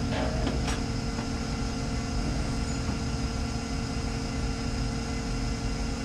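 John Deere 8235R tractor's six-cylinder diesel idling steadily, with a few sharp clicks in the first second as its hood is unlatched and lifted.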